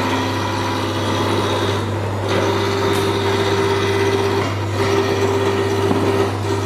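Hand-held gas blowtorch burning with a steady hiss as it is swept over freshly poured epoxy, the usual way to pop surface air bubbles. Under it runs a steady low hum, and a higher tone comes and goes several times.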